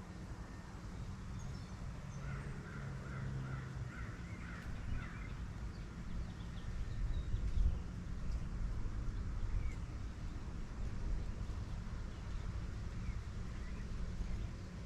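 Birds calling outdoors: a quick run of short, harsh calls a couple of seconds in, then a few scattered calls, over a steady low rumble.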